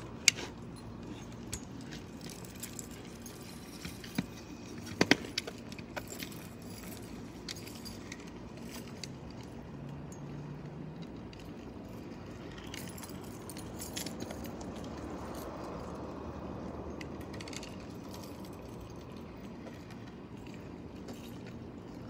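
Scattered sharp clicks and rattling, then a steady rolling noise that swells in the middle, from a scooter ridden on asphalt.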